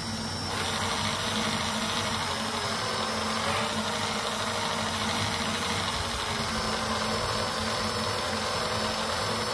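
Cordless drill running steadily, spinning the input shaft of a TGB scooter's final-drive reduction gears, a mechanical whirr of drill motor and meshing gears; it builds up in the first half second. The small input gears turn rapidly while the big gear slows toward the drive shaft.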